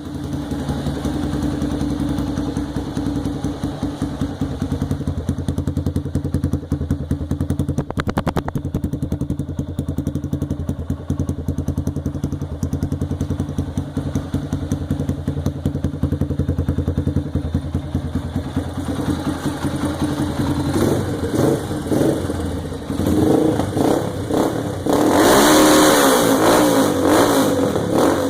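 Honda Bros motorcycle's single-cylinder four-stroke engine idling with a steady pulsing beat through an aftermarket chromed aluminium exhaust tip. About twenty seconds in it is blipped several times, and the revs rise to their loudest near the end.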